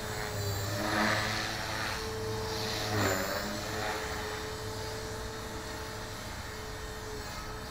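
Tarot 450 Pro V2 RC helicopter in flight, freshly rebuilt after a crash: a steady whine from its motor and rotor. It swells louder about one second in and again about three seconds in, where the pitch briefly dips, then holds steady.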